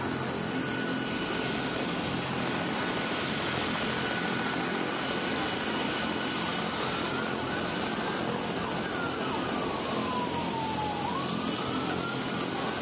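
Emergency vehicle siren holding one high tone over steady city noise and a low engine hum; near the end the siren's pitch slides slowly down, then swings quickly back up.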